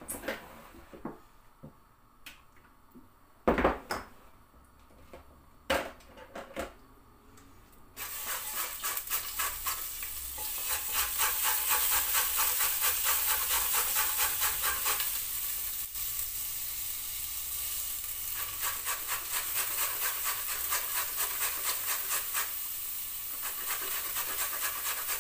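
A few scattered knocks of things being moved about on a kitchen counter. Then, from about eight seconds in, a carrot is grated on a flat metal grater: a steady run of rasping strokes, about three a second.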